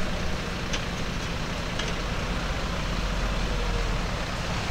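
Fire-service Nissan Navara pickup driving slowly toward the listener on a sandy forest track, its engine and tyres on the sand growing louder as it comes close.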